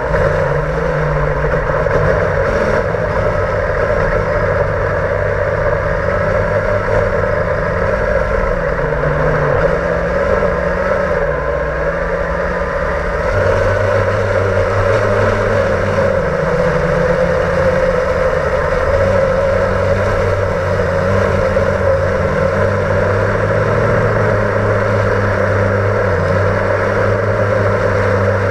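Blade 350 QX quadcopter's electric motors and propellers whirring loudly and close, heard from the GoPro it carries. The pitch wavers with the throttle and shifts about halfway through as the quad descends to land.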